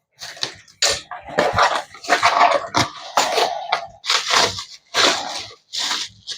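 Packaging crinkling and rustling in irregular bursts as a cast iron pot is unwrapped by hand.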